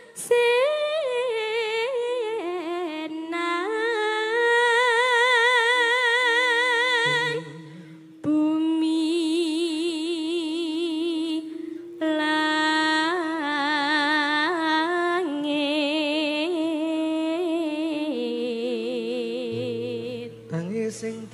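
A sinden, a female Javanese singer, sings a slow melismatic vocal line through a microphone: long held notes with a wide, even vibrato and sliding ornaments, broken by a short breath about eight seconds in. Steady low accompanying notes sound beneath the voice.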